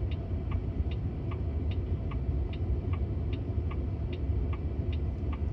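Car turn-signal indicator ticking steadily, about two and a half ticks a second, over the low rumble of the cabin and traffic. It marks the driverless car signalling for a lane change.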